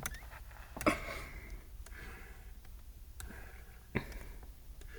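A few sharp, light clicks, one about a second in and another near 4 seconds, over soft breathing and sniffing in a quiet room.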